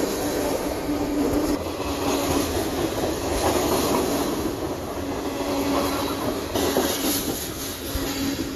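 CSX freight train rolling past: a steady rumble of steel wheels on the rails, with faint squealing tones from the wheels coming and going.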